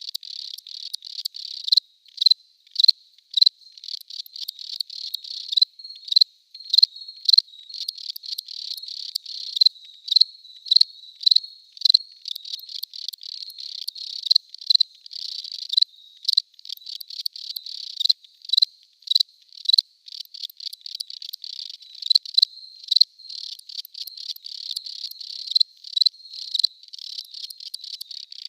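Crickets chirping: short, high-pitched chirps repeated several times a second. The louder chirps come in irregular clusters over a fainter, steady chirping from others.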